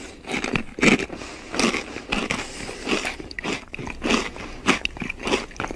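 Loud crunchy biting and chewing, about two sharp crunches a second.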